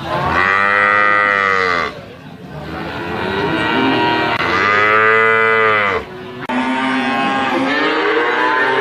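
Water buffalo lowing: two long, drawn-out calls, each rising and then falling in pitch, followed about six and a half seconds in by another call with overlapping tones that runs on.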